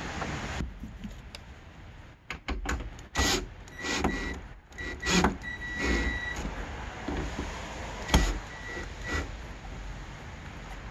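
Cordless drill-driver running in a series of short bursts with a motor whine, driving the bolts that fasten the fenders. A few light clicks come just before.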